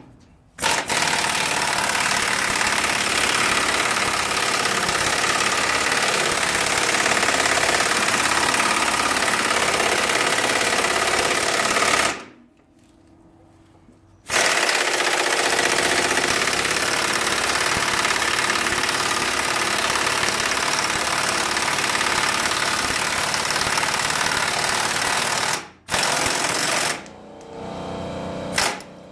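A loud power tool running in two long stretches of about eleven seconds each, with a short pause between them and a brief final burst near the end. It starts and stops abruptly.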